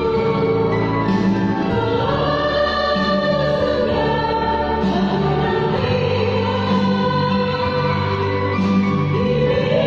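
Virtual choir of separately recorded singers mixed together, singing sustained notes in harmony, with the chord shifting every second or two.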